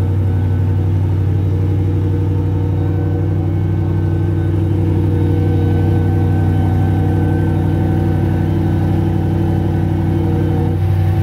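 Koenigsegg Regera's V8 engine idling steadily after being started, a low, even rumble.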